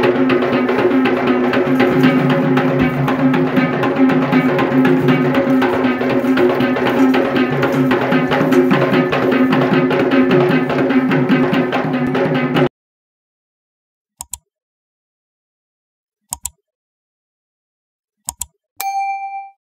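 Kandyan geta bera drums played in a fast, dense rhythm for wes dancing, with a few steady held tones under the drumming, cutting off suddenly about 13 seconds in. After a silence come three quick double clicks and a short bell-like ding near the end, the sounds of a subscribe-button animation.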